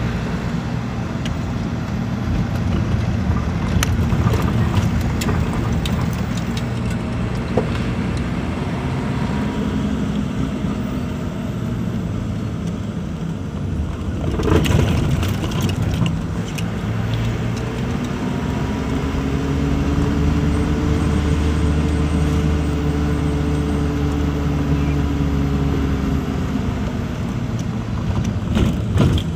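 Engine and road noise heard from inside a moving vehicle: a steady drone whose engine tone swings up and back down in the second half. A few knocks and rattles, bunched about halfway through.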